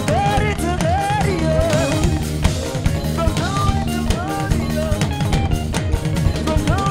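Upbeat praise music: a drum kit keeps a busy beat with bass drum, snare and rimshots, and a melody line with sliding notes runs over it.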